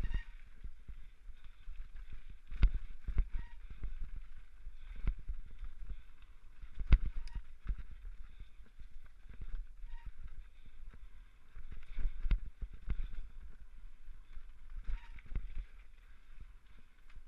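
Mountain bike descending rough forest singletrack, picked up by a helmet camera: an irregular run of knocks and rattles from the wheels and frame jolting over roots and rocks, over a low wind rumble on the microphone. The hardest jolts come about two and a half and seven seconds in.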